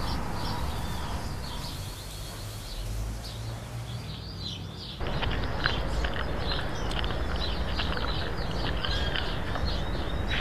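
Outdoor garden ambience: many small birds chirping over a steady low background hum. The background steps up abruptly about five seconds in.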